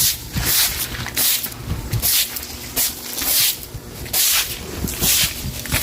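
Broom sweeping and scrubbing a wet floor: repeated scratchy swishes, about one and a half strokes a second.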